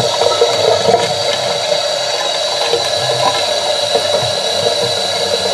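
Water from a tap runs steadily into a small homemade plastic model toilet bowl, filling it to test the flush.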